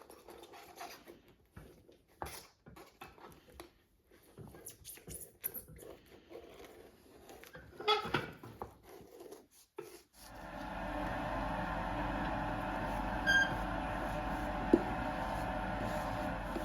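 Scattered light taps and clicks of hand work. About ten seconds in, a workshop machine's electric motor spins up and then runs with a steady hum.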